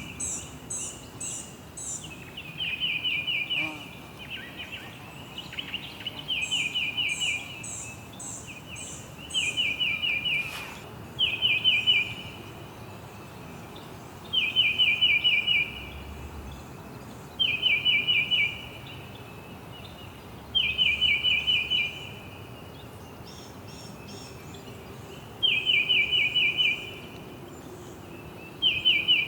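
Songbird repeating a short, rapid trill phrase roughly every two to three seconds, with a second, higher-pitched series of quick chirps between some phrases.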